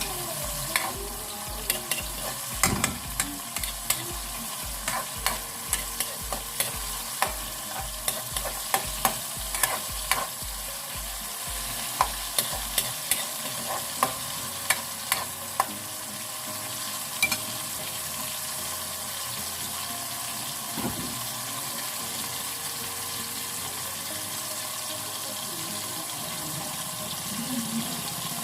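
Tomatoes, hot peppers, onions and garlic sizzling steadily in hot oil in a pan, with a spoon clicking against the pan as the sauce is stirred, often in the first half and only now and then after.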